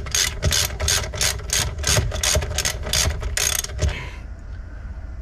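Ratchet wrench clicking steadily, about four clicks a second, as a loosened brake caliper bolt is wound out. The clicking stops abruptly about four seconds in.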